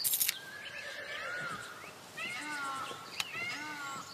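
A brief noisy burst right at the start, then a series of short, wavering animal calls, one every half second or so, over outdoor ambience.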